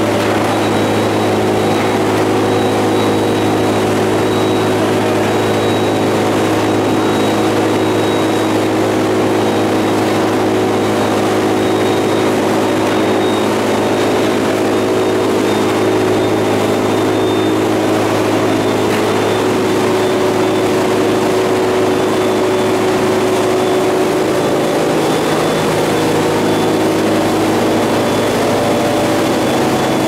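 Induction melting furnace and its power panel running with a loud, steady electrical hum made of several held tones, with a faint high whine that sinks slightly in pitch over time.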